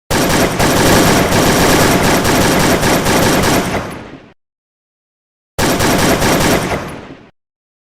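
Automatic gunfire in two long bursts: a rapid run of shots lasting about four seconds that dies away, then after a second of silence a shorter burst of under two seconds.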